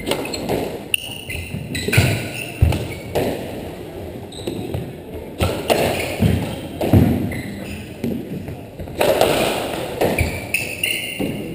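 A doubles squash rally: the ball is struck by rackets and smacks off the court walls over and over at an irregular pace, while sneakers squeak in short chirps on the hardwood floor.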